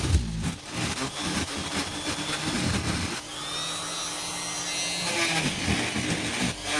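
Electric straight grinder with a rotary burr cutting into olive wood: a steady motor whine with a grinding hiss, wavering and dipping in pitch several times as the bit is pressed into the wood.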